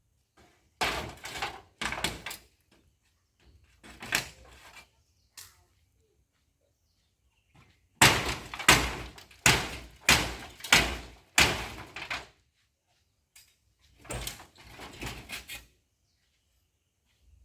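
Heavy hammer blows knocking apart a pit latrine, in several bursts of knocks with a short rattle after each. The loudest run, about six blows in quick succession, comes about halfway through.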